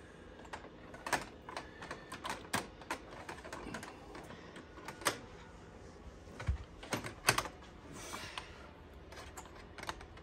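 Irregular clicks and taps of an O gauge model boxcar being handled and its wheels set onto the metal three-rail track, with a louder knock about seven seconds in and a brief rustle of fabric shortly after.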